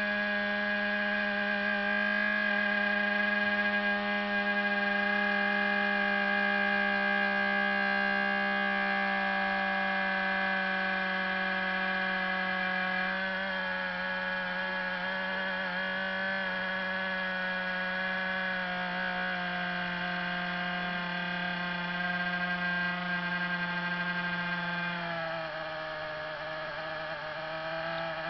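Cooling fan of a Fujitsu WA3/D1 (AH77/D1) laptop making an abnormal whining hum of several steady tones. The pitch wavers about halfway through and drops near the end as the fan speed changes. The fan is failing: the PC reports a fan error at startup.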